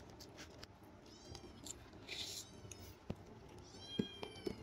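Cats meowing faintly twice, about a second in and again near the end, begging for food, over small clicks and rustles of food being handled and peeled by hand.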